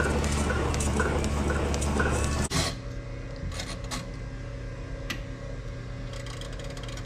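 Milking machine running on a cow: a steady vacuum hum with a faint regular tick about twice a second from the pulsation. About two and a half seconds in this gives way to a quieter hum and a few sharp clicks as the cycle dial of an Alfa Laval Agri 3000 Auto Washer is turned.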